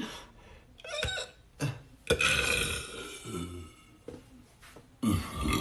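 A man burping: a long belch starting about two seconds in, then another loud belch beginning near the end.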